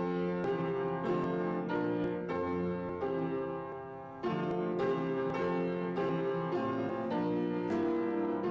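Solo piano playing slow, sustained chords, a new chord struck about every second, easing off briefly about four seconds in before a louder chord comes in.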